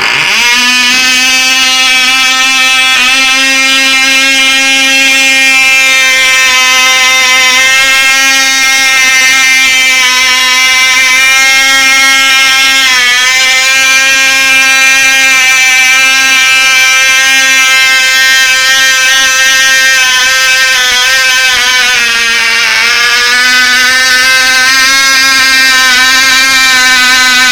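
Cox .049 glow-plug two-stroke model engine running at high revs with a loud, high-pitched buzz, catching and winding up right at the start. Its pitch dips briefly about 13 seconds in and again around 22 seconds, then recovers.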